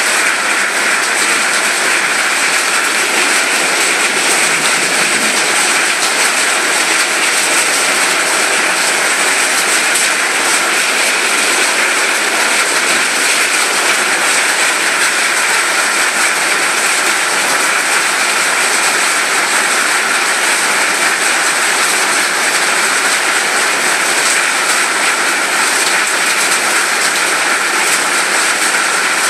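Loud, steady rain falling, an even hiss that holds without a break.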